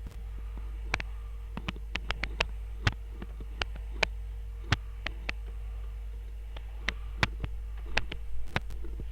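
SMD hot air rework station blowing steadily around a phone's USB-C charging jack to melt its solder, under a low steady hum, with many scattered sharp clicks.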